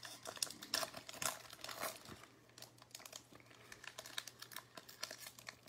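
Foil wrapper of a Topps baseball card pack crinkling in the hands as the pack is worked open, in faint irregular crackles that are busiest in the first two seconds.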